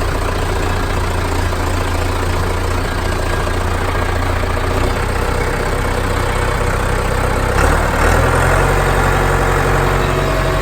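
John Deere 6400 tractor's four-cylinder diesel engine running steadily as the tractor sets off in first forward gear. About three-quarters of the way through there is a brief knock and the engine note changes.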